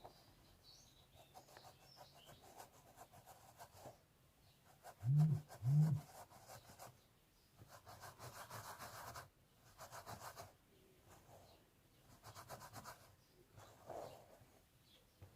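Fingernails scratching a scalp through hair close to the microphone, in bursts of quick strokes a few seconds long with short pauses between. Two short, dull low thumps come about five and six seconds in.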